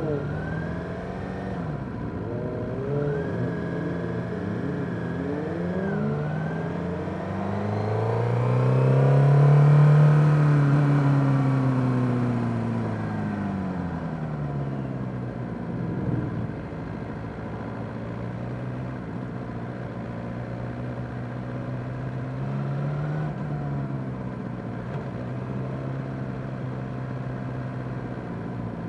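Motorcycle engines riding in a group, led by the Suzuki GSX-R600's inline-four. The engine note rises to its loudest about ten seconds in, then falls back to a steady cruise.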